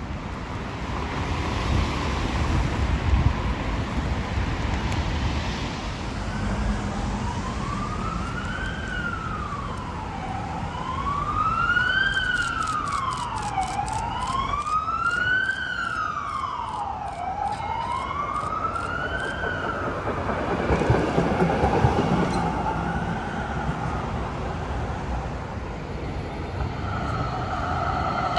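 An emergency vehicle's siren wailing, its pitch sweeping slowly up and down about four times, over steady traffic rumble and wind noise. It starts about a quarter of the way in and fades out about two-thirds of the way through.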